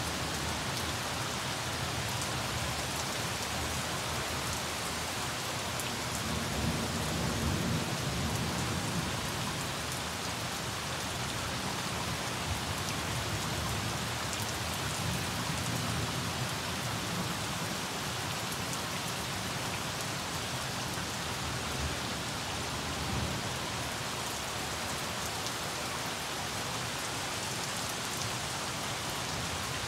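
Heavy rain pouring down onto pavement, plants and ground in a steady, dense hiss. A low rumble swells up a couple of times.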